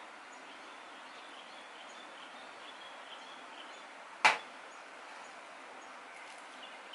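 A ceramic mug set down on a table with one sharp knock about four seconds in, over a steady faint background hiss.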